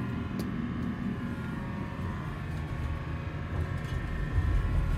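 Steady low rumble and hum inside a hotel elevator car, with a single sharp click about half a second in, as a floor button is pressed.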